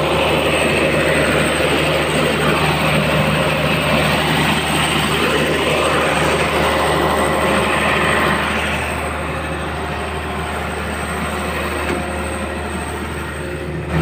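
Turbocharged Isuzu diesel engine of an excavator running steadily, started with a newly fitted starter. It gets somewhat quieter from about eight seconds in.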